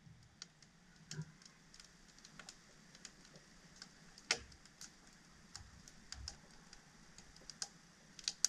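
Freshly lit split kindling in a campfire crackling faintly as it catches: scattered sharp snaps and ticks at irregular intervals, with a louder snap about four seconds in and another near the end.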